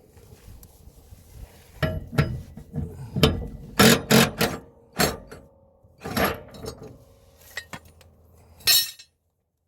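Irregular metal clinks and clanks, a string of separate knocks with a loud cluster near the middle, as steel blade hardware on a mower deck is handled and worked loose. The sound cuts off abruptly about nine seconds in.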